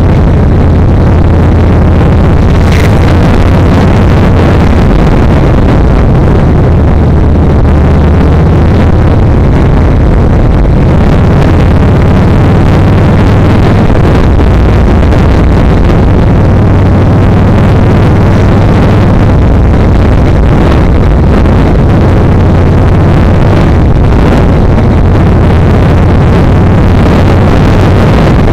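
Yamaha XVS1300's V-twin engine running steadily under way, as heard from the moving motorcycle, with a loud rushing of wind over the microphone.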